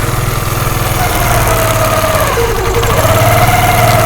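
Motorcycle engine running steadily just after being started, with a faint wavering whine that rises slightly about three seconds in. The tak-tak knock from the worn front chain sprocket is absent, the sprocket now turned round to its other side.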